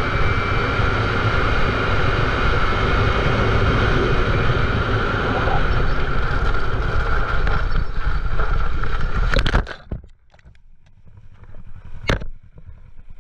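Kawasaki Ninja motorcycle running at road speed on a gravel road, with steady engine and wind noise. A little over two-thirds of the way in comes a short clatter of impacts as the bike loses traction on the gravel and goes down. Then the noise drops away suddenly, broken by one sharp knock.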